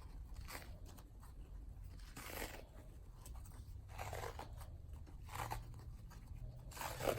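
Faint crinkling rustles of self-adhesive athletic tape being unrolled and wrapped around a bandaged tail: a handful of short, soft, scratchy swishes a second or so apart.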